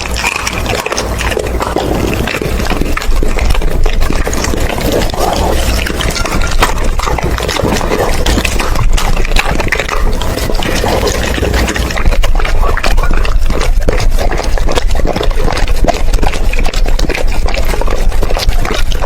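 A Doberman chewing raw food close up: steady wet, smacking chewing with many short crunches.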